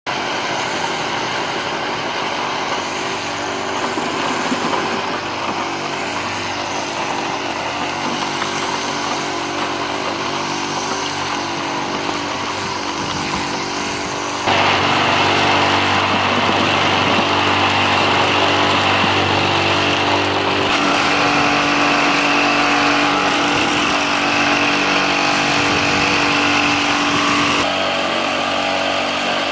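Electric vibrating motor running steadily on a homemade compost sifter, shaking its wire-mesh screen with a constant mechanical hum. About halfway through the sound gets louder and rougher as compost is poured onto the vibrating screen and rattles through it.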